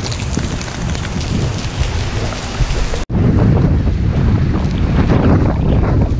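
Heavy tropical-storm rain pattering steadily for about three seconds. It then cuts abruptly to strong gusting wind buffeting the microphone with a deep rumble.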